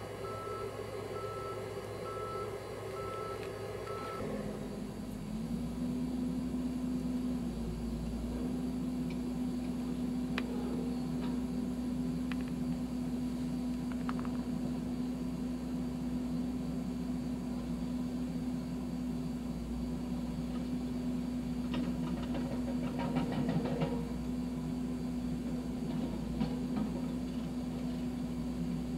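John Deere backhoe's reversing beeper sounding in quick, even beeps over its diesel engine; about four seconds in the beeping stops and the engine runs up to a higher speed and holds there steadily.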